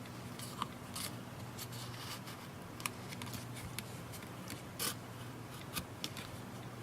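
Pry tool working under a tablet's glued screen and plastic frame: irregular small clicks and short scrapes as the adhesive cracks loose, the longest scrape just before the five-second mark.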